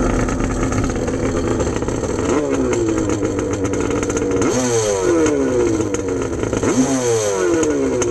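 Krash 50 Cal stand-up jet ski's two-stroke engine running out of the water. It idles steadily, then is blipped three times, the pitch jumping up each time and sliding back down to idle.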